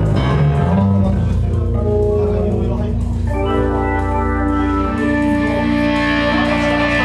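Live band music: a stage keyboard playing sustained organ chords over a low bass line, loud through the PA, with the held chords coming in about three seconds in.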